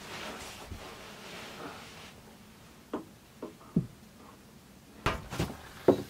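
A few light clicks and knocks, then a couple of louder knocks near the end, from handling parts at a camper's fuse panel under the bed.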